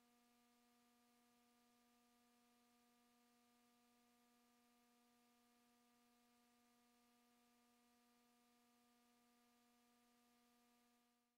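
Near silence, with only a very faint steady hum carrying a row of even overtones, fading out at the very end.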